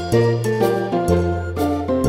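Background music: a bright melody of short struck notes over low bass notes that change about once a second.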